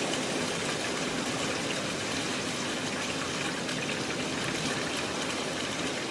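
Hailstorm downpour: rain and hail falling steadily in a dense, even patter.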